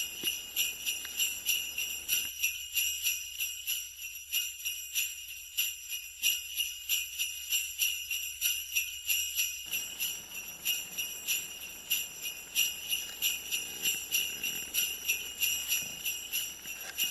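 Jingle bells (sleigh bells) shaken in a steady, even rhythm, about three shakes a second.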